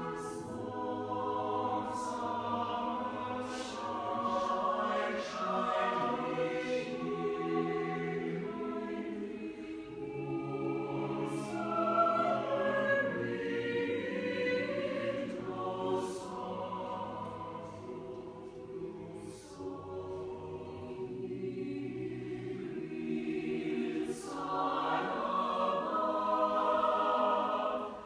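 Mixed chamber choir singing a slow choral piece in held, blended chords, with the sharp consonants sung together. It swells about halfway through, softens, then swells again near the end.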